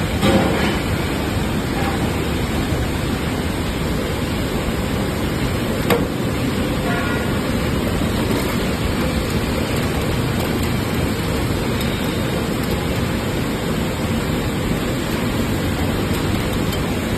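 Steady, loud machine noise from a hydraulic baling press running, with a single sharp knock about six seconds in.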